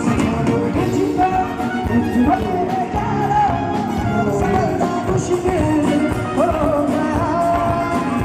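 Live band playing: drums keep a beat under a wavering lead melody line.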